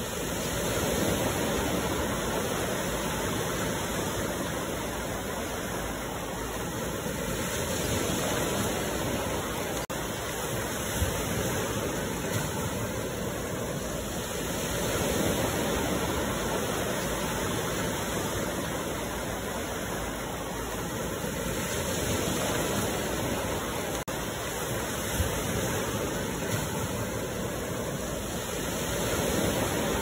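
Steady rushing of water from a large waterfall, swelling and easing slowly every few seconds.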